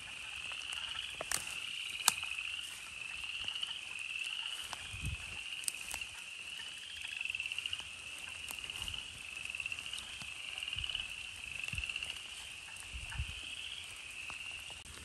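Chorus of wood frogs calling, a steady chuckling that swells and fades in waves, with a few footsteps and knocks in the leaf litter.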